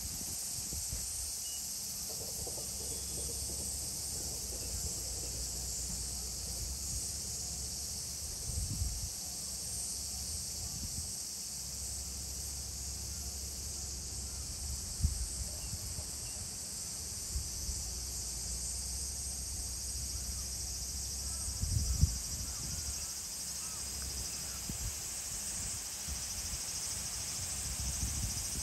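Steady high-pitched chorus of insects, over a low rumble, with a few short low thumps, the loudest about halfway through and again later on.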